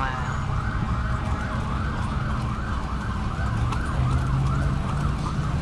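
Siren wailing in quick up-and-down sweeps, about three a second, over the low rumble of street traffic.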